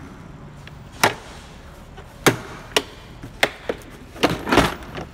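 Hard plastic torque wrench cases knocking and clacking as they are handled and set down in a toolbox drawer: a string of about seven sharp knocks, the loudest near the end.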